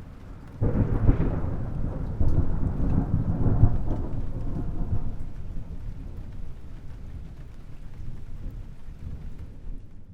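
Thunder: a clap comes in suddenly about half a second in, then a long, deep rumble that is loudest over the next few seconds and slowly dies away.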